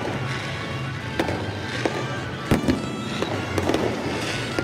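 Fireworks going off, a series of sharp bangs and pops with the loudest about two and a half seconds in, over music playing in the background.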